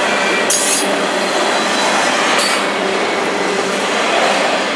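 Double-stack intermodal container cars rolling past close at speed: a loud, steady rolling noise of steel wheels on rail, with some thin wheel squeal. There are two brief high bursts of noise, about half a second and two and a half seconds in.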